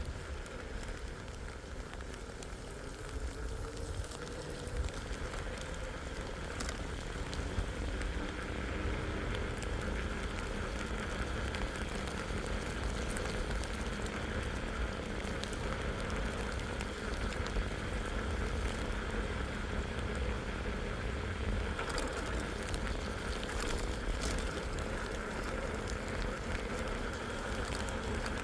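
Steady rain with the low rumble of a vehicle on the move, and a faint tone rising in the first few seconds as it picks up speed.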